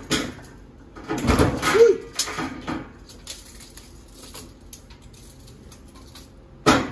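A short clunk and rattle about a second in as the JUKI LG-158's presser foot is raised. Fainter handling noises follow, and a sharp click comes near the end.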